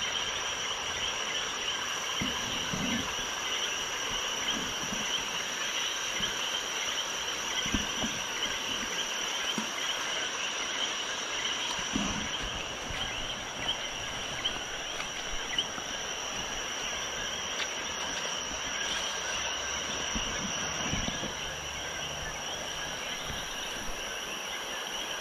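Night chorus of frogs and insects: a steady high-pitched buzz over a dense, shimmering band of calls. A few soft low knocks are heard now and then.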